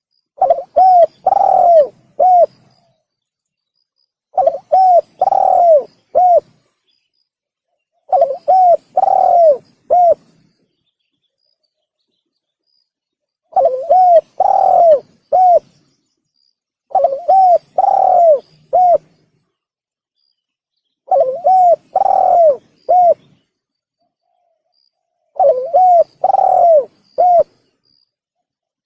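Male spotted dove (tekukur) cooing: seven phrases about four seconds apart, each of four quick rounded coos with the third drawn out longer.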